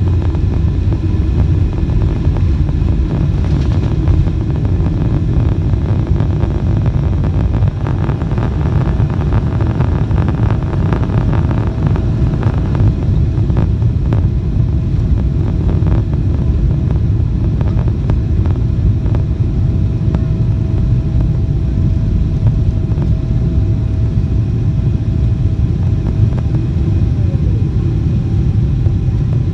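Aircraft engine and airflow noise heard from inside the cabin during takeoff: a loud, steady, deep rumble. A faint steady whine sits above it and glides down in pitch near the end.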